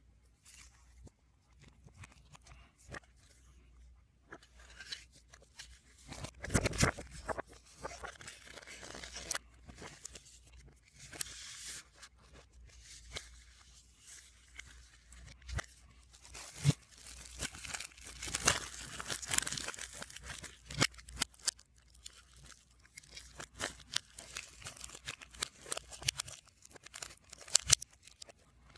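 Music album's packaging being unwrapped and handled, with plastic and paper crinkling, tearing and clicking in irregular bursts, the sound played backwards.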